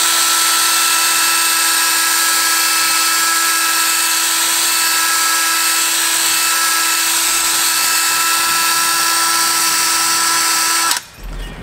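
Cordless drill spinning a 3M Roloc rubber-bristle disc against the engine block deck, scrubbing off old head gasket material: a steady high whine over a harsh grinding hiss that cuts off near the end.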